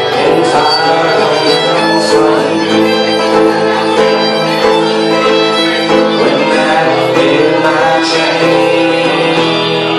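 Live fiddle and guitar playing an instrumental break: the fiddle carries the melody in long, held notes over a strummed resonator guitar.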